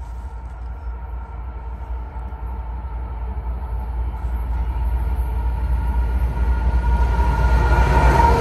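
Norfolk Southern diesel freight locomotives approaching at the head of a double-stack container train: a low engine rumble with a steady whine, growing steadily louder and loudest near the end as the lead unit passes close by.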